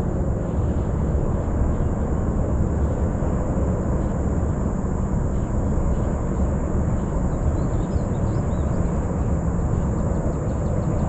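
Steady outdoor background noise: an even low rumble with a thin constant high whine above it, no single event standing out.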